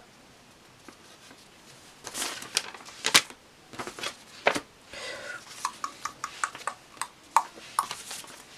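Paper sticker sheets picked up and shuffled by hand. Paper rustling starts about two seconds in, followed by a quick run of small sharp clicks and taps.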